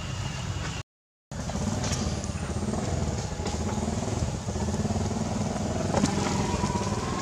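A small engine running steadily with a low, pulsing rumble. The sound cuts out completely for about half a second about a second in, then comes back.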